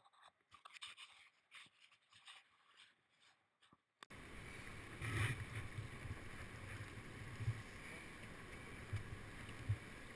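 Near silence, then from about four seconds in a faint steady rush with irregular low rumbles: wind on the microphone and water around a rowed raft drifting on calm river water.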